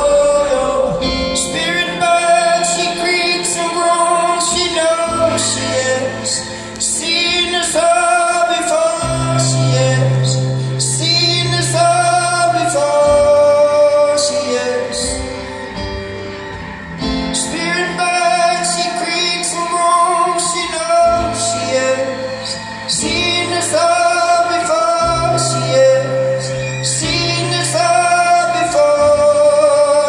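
Live acoustic music: a strummed acoustic guitar under a wordless sung melody, with a deep held bass note coming in and dropping out every few seconds.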